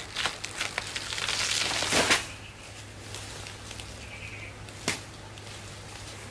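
A banana plant's stem toppling over: its leaves rustle louder for about a second and end in a crash about two seconds in. A single sharp knife chop into the fallen stem follows near the end.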